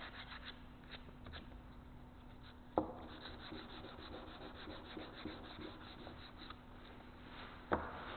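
Hand sanding of pine 2x4 lumber with 120-grit sandpaper: a faint, even rasp of quick back-and-forth strokes with the grain. Two short sharp knocks stand out, about three seconds in and near the end.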